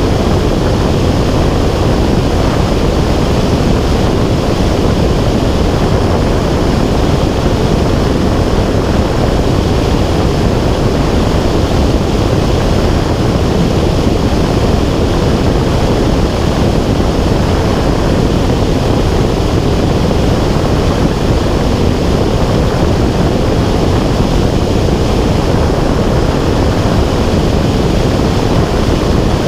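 Steady, loud rushing of wind over an airborne action camera's microphone, unbroken throughout.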